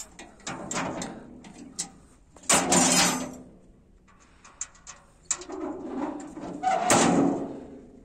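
Metal trailer loading ramps being moved by hand: scattered knocks and clanks, with two loud scraping clatters, one about two and a half seconds in and one near the end.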